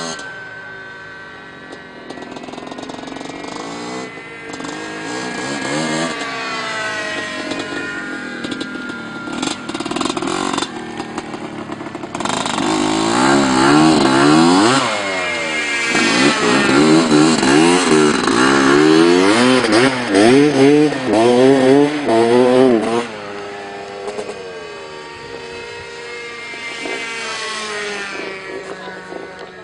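Dirt bike engine running, fainter at first, then loud from midway with the revs climbing and dropping again and again, before fading away near the end.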